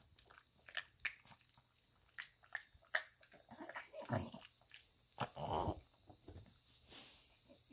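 A pug chewing and lip-smacking after a bite of cucumber, with many short wet mouth clicks and two louder breathy sounds, about four and five and a half seconds in.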